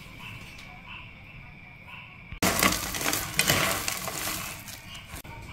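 A hand rummaging through a plate of crispy fried garlic chips, giving a dense dry crunching crackle that starts suddenly about halfway through and lasts a couple of seconds.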